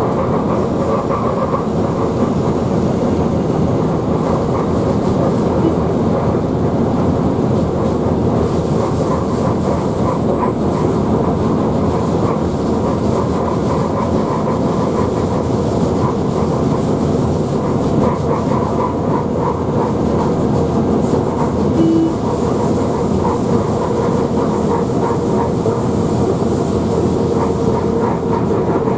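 Electric locomotive (ČD class 121) running at speed, heard from its cab: a steady rumble of wheels on rail with a fine, fast clatter and a faint steady hum. A short tone sounds once, about three-quarters of the way through.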